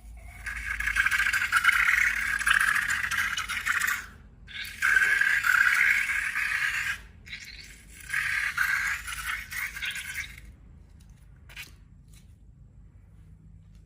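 Scraping in three bursts of two to four seconds each, followed by two faint clicks.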